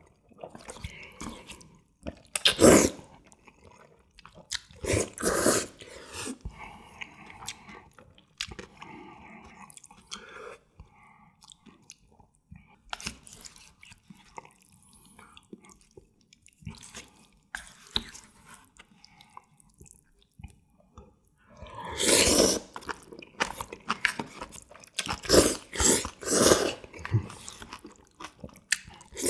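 A person slurping jjajangmyeon noodles in black bean sauce, in several loud bursts: one a few seconds in, another about five seconds in, and a longer run near the end. In between come softer chewing and the wet sounds of the noodles being stirred with chopsticks.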